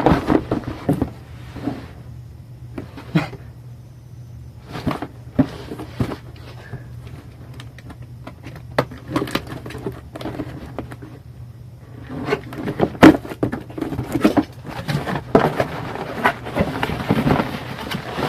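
Packaging being handled and unwrapped: scattered clicks, knocks and rustling, busier and denser in the last few seconds.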